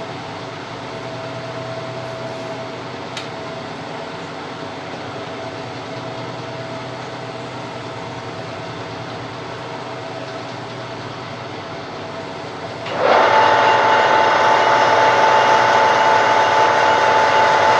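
Small lathe running steadily while turning a plastic workpiece. About 13 seconds in, the sound jumps suddenly to a much louder, higher-pitched steady whine that holds to the end.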